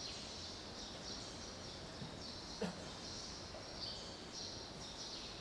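Faint outdoor stadium ambience, hushed while sprinters are set in the blocks before the gun, with a high-pitched chirring that comes and goes and a single light click about two and a half seconds in.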